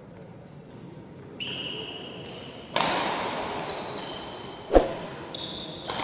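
Overlaid subscribe-button sound effect mixed with badminton court sounds. A high steady tone comes in about a second and a half in and shifts pitch a few times. A rushing swish starts near three seconds and fades slowly, a single sharp, loud crack comes just before five seconds, and a few quick clicks follow near the end.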